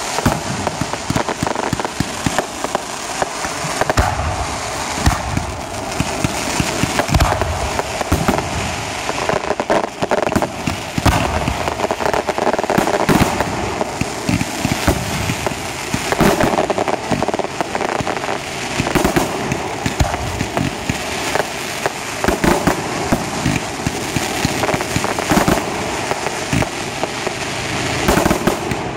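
Fireworks going off: a dense, continuous run of crackles and pops, with sharper bangs every second or two.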